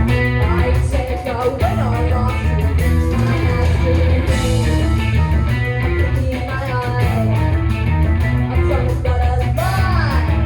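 Live rock band playing a song, with guitar to the fore over a steady beat.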